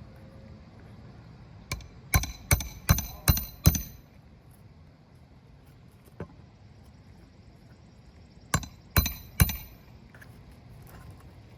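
Hammer striking a nail, each blow ringing metallically: a quick run of about six strikes, then a pause and three more.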